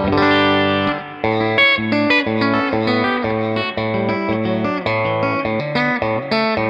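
Electric guitar played clean through a JK15R 15-watt amp with two EL84 valves. A chord rings out for about a second, then a steady run of picked notes and chords follows.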